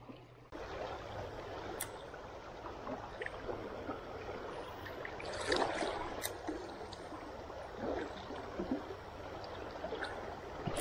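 Steady rush of river current running over a shallow riffle, with a few faint clicks.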